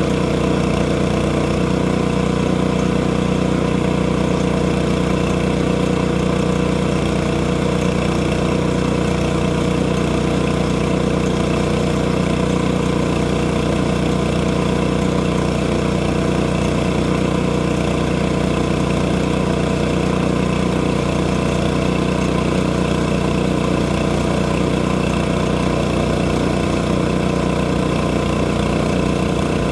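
Engine running steadily at an even, unchanging speed.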